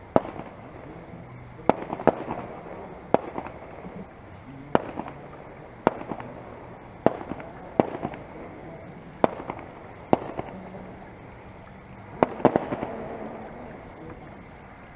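A dozen or so sharp cracks at irregular intervals, about a second apart, each trailing off with a short echo.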